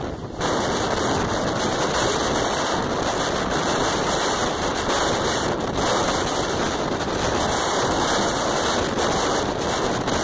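Moving passenger train heard from an open carriage door: a dense rumble and rattle of the train at speed mixed with heavy wind buffeting the microphone, jumping louder about half a second in and then holding steady.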